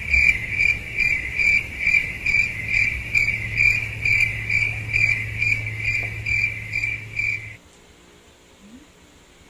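Crickets chirping sound effect: a high trill pulsing about two to three times a second over a low hum, louder than the voice around it. It cuts off suddenly about three quarters of the way through.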